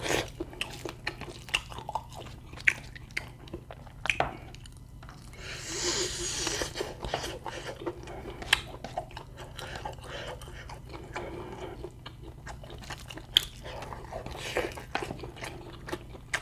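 Close-miked chewing and crunching of meat, with many sharp wet mouth clicks and crunches. A breathy hiss lasts about a second and a half around six seconds in.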